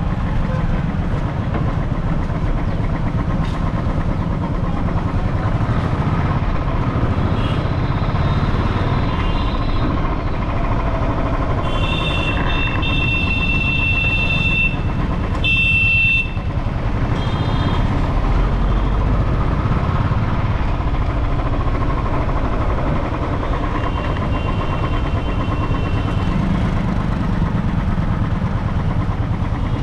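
Steady rumble of a bike ride through city traffic, with other vehicles' horns honking several times; the longest and loudest horn sounds about twelve seconds in, with a short blast just after.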